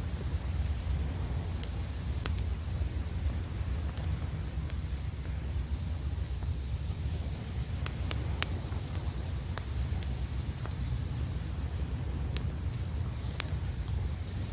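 Wood campfire crackling, with about half a dozen sharp pops scattered through, over a steady low rumble of wind on the microphone and surf.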